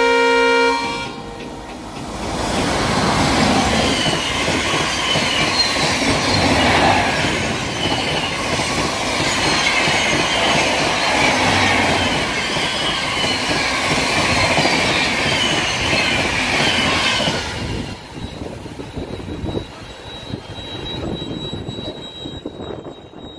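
An electric locomotive's horn blares and stops about a second in, then a long express train of LHB coaches rushes past at high speed, its wheels clattering in a fast rhythm for about fifteen seconds. The noise drops off suddenly as the last coach passes, leaving a fading rumble.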